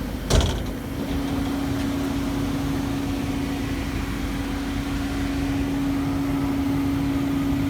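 Steady electrical hum with a fan-like hiss from a powered-up CNC vertical machining center, one even tone held throughout, with a single sharp knock about half a second in.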